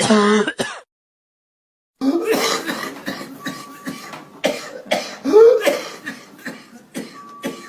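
Human coughing played as an example of cough sounds to judge a diagnosis by: a short burst in the first second, then after a pause a run of quick repeated coughs one after another.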